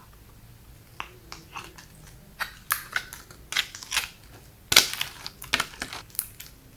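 Slime being squished and kneaded by hand, giving a string of irregular sticky pops and crackles, the loudest a little under five seconds in.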